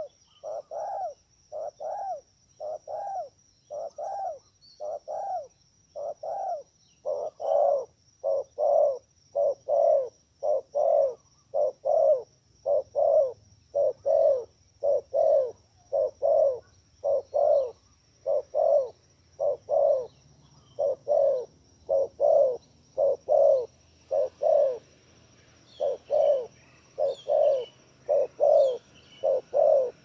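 A dove cooing in a long, even series of short coos, about one a second at first and closer to two a second from about seven seconds in. A faint steady high buzz runs underneath, and other small birds chirp faintly near the end.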